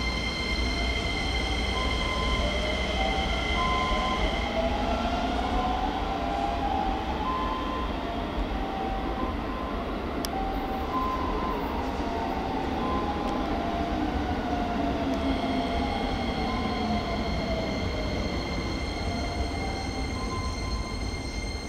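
Keisei 3000-series electric commuter train running on the rails, its inverter-driven traction motors whining. The whine rises in pitch for several seconds, then falls again, with a steady rumble of the wheels beneath and a single click partway through.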